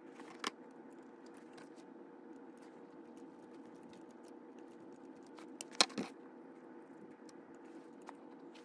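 A few faint clicks and taps of a small screwdriver and metal parts on a brass HO model locomotive chassis as the pilot is fitted, the loudest pair about six seconds in, over a steady low hum.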